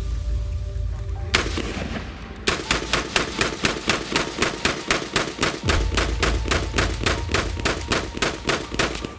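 Colt M4 carbine in 5.56×45 mm NATO firing: one shot, then about a second later a long, rapid string of evenly spaced shots at roughly four a second, which stops just before the end.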